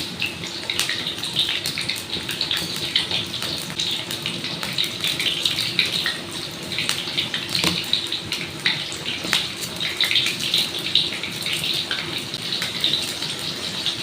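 Eggplant pieces frying in hot oil: a steady sizzle with dense, irregular crackling pops.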